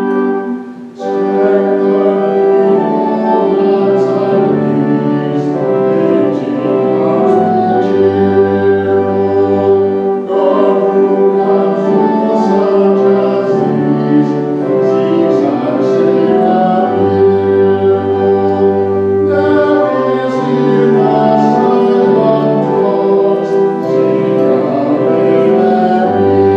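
Closing hymn: organ playing sustained chords with a bass line, and voices singing along, with a short break about a second in.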